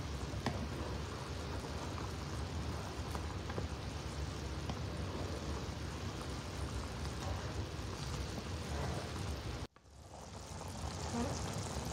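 Marsala cream sauce bubbling at a boil in a cast-iron skillet, a steady hiss. The sound cuts out abruptly about ten seconds in and fades back up.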